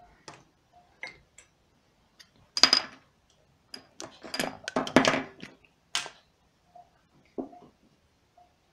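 Small hard makeup containers and compacts clicking and clattering as they are rummaged through, picked up and set down, in a string of short knocks with the loudest clatters a little after two seconds and around five seconds in.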